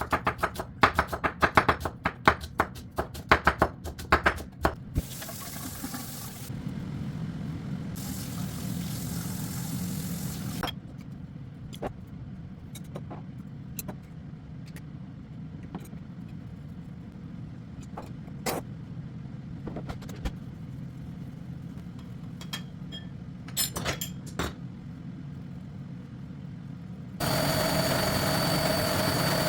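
Kitchen work sounds: a rapid run of sharp knocks and clicks, then a steady rushing noise for a few seconds, and a few scattered clicks. Near the end an electric kitchen appliance switches on abruptly and runs with a steady, constant-pitched hum.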